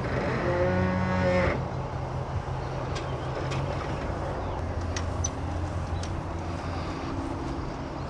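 Ram pickup truck idling as it reverses slowly up to a trailer hitch. A low, drawn-out tone about a second long rises over the engine near the start, the loudest sound, and a few faint ticks follow.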